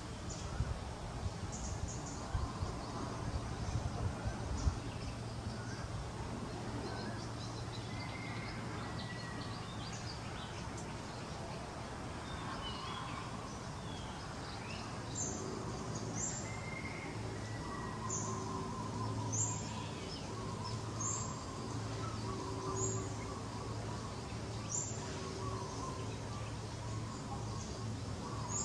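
Outdoor ambience of birds calling and chirping, with a short high chirp repeating every second or two through the second half, over a steady low hum. A few low thumps come in the first few seconds.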